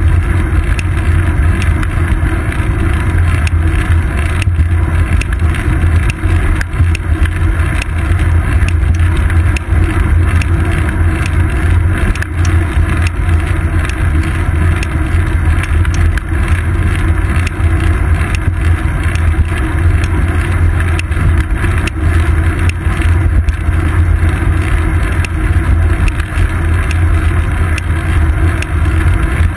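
Riding a bicycle on an asphalt path, heard through a GoPro Hero 2 mounted on the seat post: a loud, steady low rumble of wind buffeting and road vibration, with small ticks throughout.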